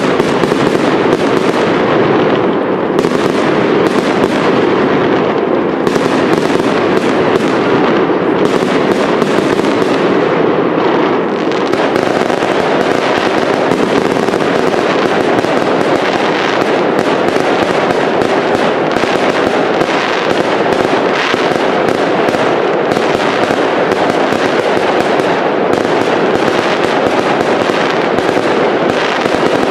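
Aerial fireworks display: a dense, unbroken barrage of shell bursts with rapid crackling and popping at a steady, loud level.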